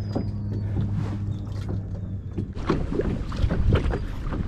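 Wind buffeting the microphone and small choppy waves lapping and slapping against a plastic kayak hull, rising about halfway through. Before that, a steady low hum runs under light water splashes.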